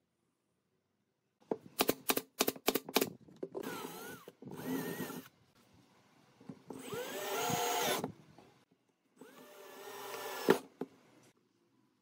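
Cordless drill driving wood screws through a pine block into the end of a wooden post, in four short runs with the motor's whine rising and falling in pitch. A quick row of sharp clicks comes before the first run, and a loud knock ends the last one.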